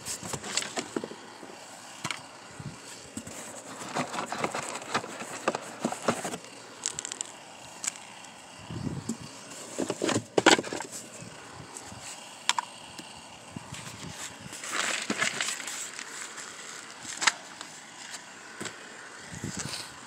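Unpacking noises: packaging rustling and scraping with irregular knocks and clicks as pressure washer parts are taken out of the box, a louder knock about halfway through.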